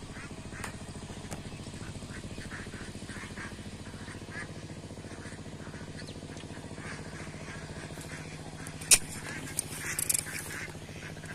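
Ducks quacking repeatedly over a steady low hum, with one sharp knock about nine seconds in and a few quicker clicks soon after.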